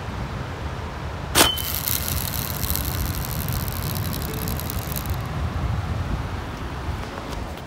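A stainless air cannon bait launcher fires with one sharp blast about a second and a half in, followed by about four seconds of high whirring hiss as fishing line runs off the reel, stopping abruptly. Wind and surf rumble underneath.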